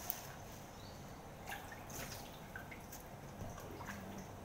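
Wet watercress being handled in a stainless steel pot of water: scattered drips and small splashes with the rustle of leaves, faint.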